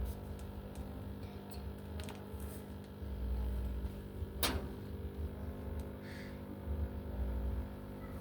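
Washing machine drain pump running with a steady hum over an uneven low rumble, during a spin test of a direct-drive washer. A single sharp click about four and a half seconds in.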